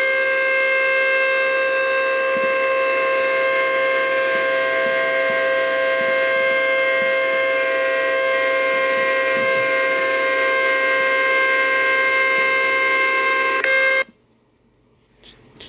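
Outdoor tornado warning siren sounding a loud, steady tone that holds one pitch without rising or falling, then cuts off suddenly near the end.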